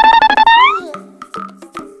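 Background music with a steady beat. At the start, a bright, rapidly pulsing tone effect bends upward and fades out within the first second.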